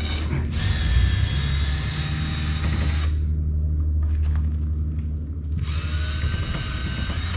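Power drill with a screwdriver bit running in two bursts, backing stainless steel wood screws out of a wooden boat's hull planks, over a steady low hum.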